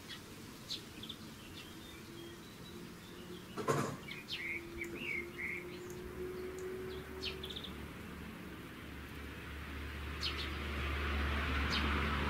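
Small songbirds chirping in short, scattered calls. A sharp click comes a little before the middle, and a low rumble with a hiss swells over the last few seconds.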